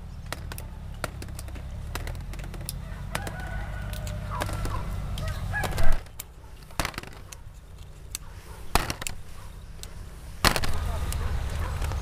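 Chickens clucking and a rooster crowing, with several sharp knocks scattered among the calls, the loudest about halfway through.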